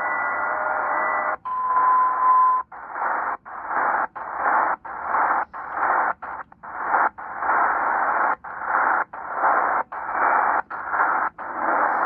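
Tecsun PL-330 shortwave receiver in upper sideband, tuning across the 40 m band: a hiss of static, with a few steady tones at first and then one steady tone for about a second. After that the audio cuts out briefly and sharply roughly every 0.7 s, the radio's muting "chuffs" as it steps through the band.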